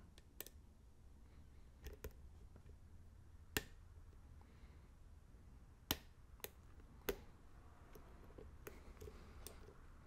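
Faint, scattered clicks of a hook pick working the pin stack of a pin-tumbler challenge lock cylinder held under a tension wrench. There are about nine sharp single clicks at uneven intervals, the clearest about three and a half, six and seven seconds in.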